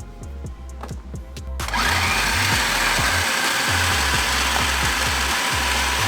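Electric food processor switching on about a second and a half in and running steadily, chopping a full bowl of onions, peppers, garlic and herbs into sofrito. Background music with a bass beat plays beforehand and under the motor.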